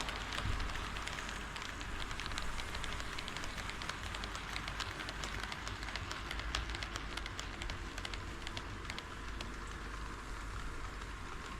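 HO scale model train running on KATO Unitrack: a steady rolling rattle of metal wheels, with many quick, irregular clicks as they pass over the rail joints.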